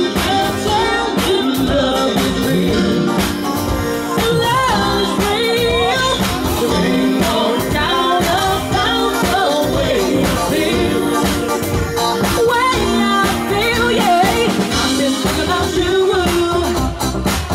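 Live dance band playing, with several singers at the microphones singing over the band.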